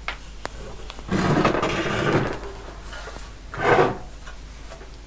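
Black, slotted sheet-metal chassis panel of a PDP-8M computer being handled on a workbench. Two light clicks are followed by about a second of scraping as the metal slides over the bench top. A short, louder scrape or knock comes near the end as the panel is set down on its edge.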